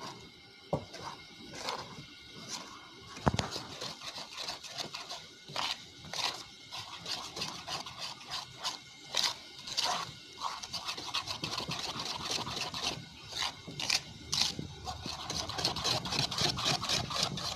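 Spoon stirring and scraping a thick flour-and-milk frying batter in a bowl, in quick, irregular strokes. This is the batter being mixed up to a hotcake-like consistency.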